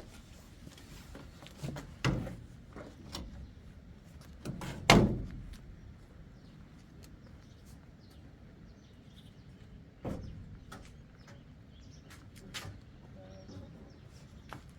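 A few dull knocks and thumps, the loudest about five seconds in, with others near two and ten seconds, among scattered small clicks.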